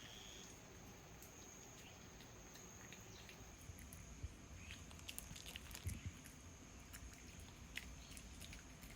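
Near silence: faint background with a thin steady high tone and a few soft scattered clicks and taps in the middle.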